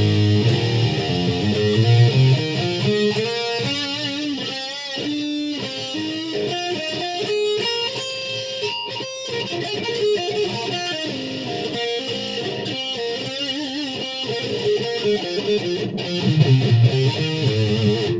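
Distorted electric guitar played through a Line 6 Spider 75-watt amp: a lead line of single notes, many held with wide vibrato, with heavy low notes at the start and again near the end.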